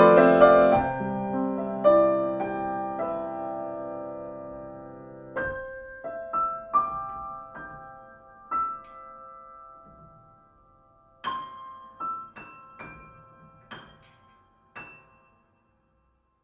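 Slow, gentle solo piano music: a held chord dies away, then sparse single notes sound about a second apart, and the music stops near the end.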